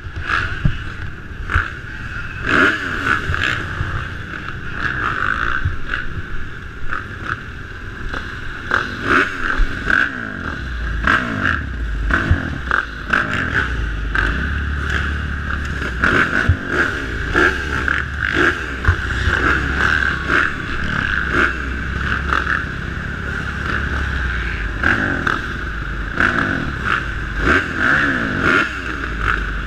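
Several motocross dirt bikes idling together behind the starting gate, their throttles blipped again and again so the engine pitch keeps rising and falling.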